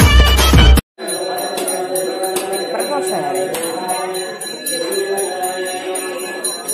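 Loud title music cuts off abruptly about a second in. It gives way to a temple bell ringing rapidly, about four strokes a second, over the murmur of a crowded hall.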